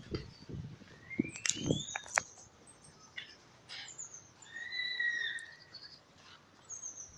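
Birds chirping and whistling: a whistle rising in pitch about a second in, a steady whistle around five seconds in, and short high chirps, with a few soft low thumps in the first two seconds.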